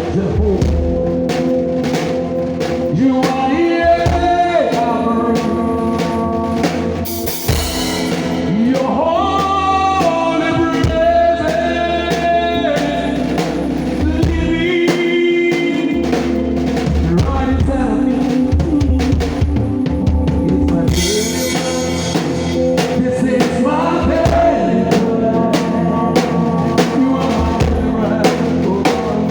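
Live gospel worship band playing a groove: a drum kit drives it with kick, snare and rimshots, with cymbal crashes about seven seconds in and again past the twenty-second mark, under sustained keyboard chords and a singing voice.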